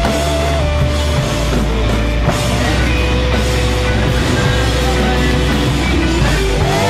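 Rock music soundtrack: held, sliding melody notes over steady low bass notes.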